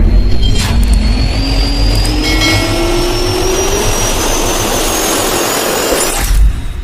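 Jet aircraft engines running with a heavy rumble, their whine rising slowly and steadily in pitch as they spool up. The sound cuts off abruptly near the end.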